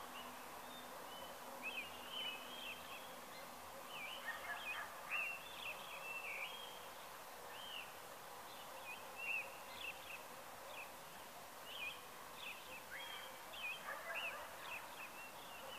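Birds calling in many short, repeated chirping notes, several birds overlapping, over a faint steady rural background hum.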